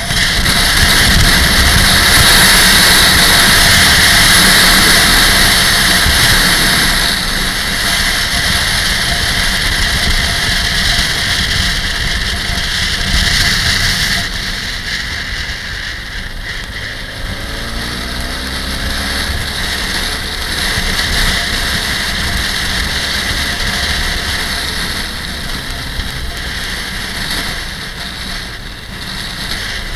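Motorcycle on the road: its engine runs under a heavy rush of wind noise on the microphone. The rush eases about halfway through, and a few brief engine pitch glides come in the middle as the bike works through the curves.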